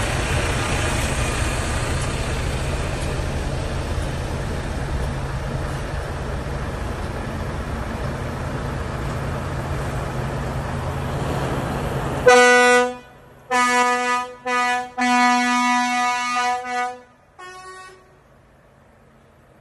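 Steady heavy-vehicle engine and road noise, then about twelve seconds in a run of air-horn blasts: about five of one pitch, broken by short gaps, then a single short, higher-pitched blast.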